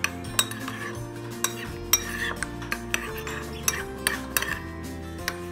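Spoon stirring a thick ketchup-based sauce in a bowl, knocking and clinking against the bowl's sides at an irregular pace, with a soft scraping in between. Background music plays underneath.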